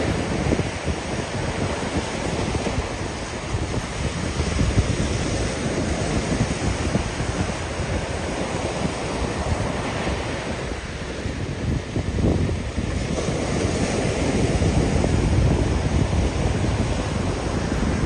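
Gulf surf breaking and washing up a sand beach in a steady rush of waves, with wind buffeting the microphone.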